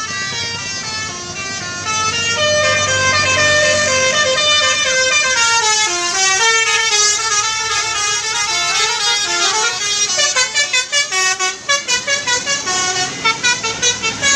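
Tourist bus's telolet basuri musical horn playing a tune of stepped notes. About ten seconds in, the notes break into quick short blasts, about three a second.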